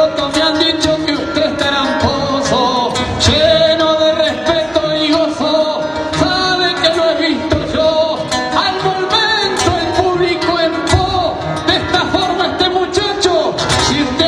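A man singing improvised verse in the payada style over acoustic guitar accompaniment.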